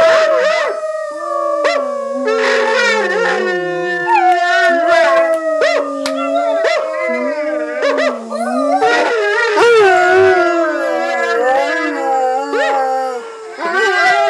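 Several dogs howling together from a video, long overlapping howls that slowly fall in pitch. Right at the end a cardigan corgi mix starts a howl of his own.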